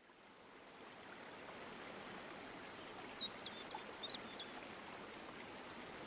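Faint steady hiss that fades in over the first second, with a few short, high chirps about three to four and a half seconds in.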